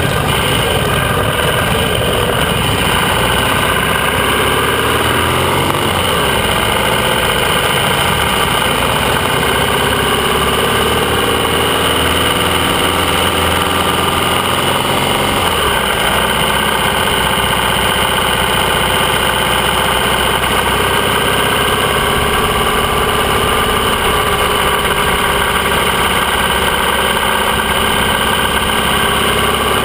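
Motorcycle engine heard from on board, most likely the AJS 650 CSR parallel twin, pulling away from a standstill and riding on at low speed. Its note rises and falls several times as it accelerates and changes gear.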